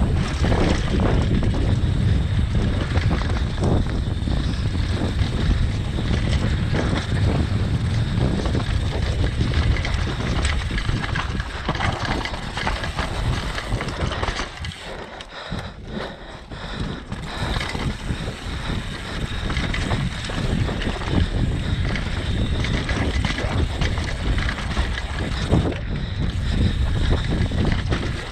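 Wind rushing over an action camera's microphone as a downhill mountain bike descends a dirt forest trail, with the tyres rumbling and the bike rattling over roots and bumps. The noise eases for a couple of seconds about halfway through.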